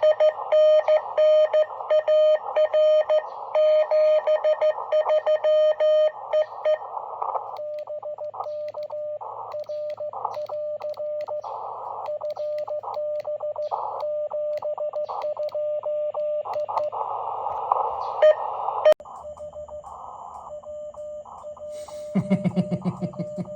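Morse code (CW) from a ham radio transceiver: a single mid-pitched tone keyed in dots and dashes. It is loud and clean for the first six seconds or so, then weaker and sitting in receiver hiss. There is a sharp click about nineteen seconds in and a brief low buzz near the end.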